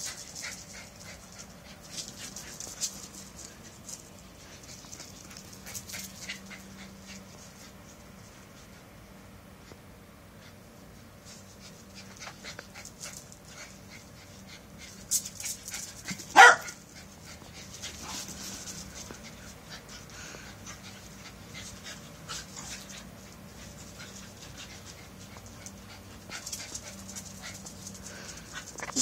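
A dog panting, among small scuffling clicks, with one short sharp sound, the loudest in the stretch, about halfway through.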